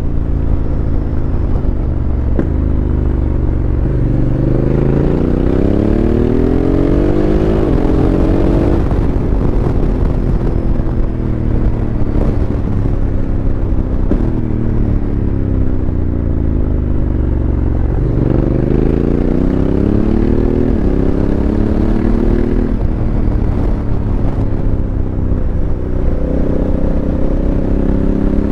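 Honda CRF1100L Africa Twin's parallel-twin engine through an aftermarket Fuel Exhausts system, pulling up through the gears with a rising note broken by quick drops at each upshift. Through the middle the note falls steadily as the bike slows off the throttle, then climbs again through more gear changes. Wind noise from the helmet-mounted mic runs under it.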